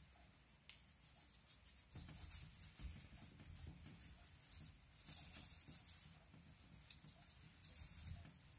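Faint scratchy rubbing and light patting of hands working paprika into a slab of boiled pork fat, with small clicks.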